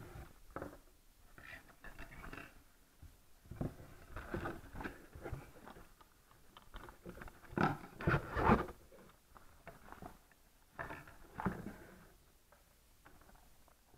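Parcel packaging being handled and opened: irregular rustling and scraping with a few soft knocks, the loudest two strokes about eight seconds in.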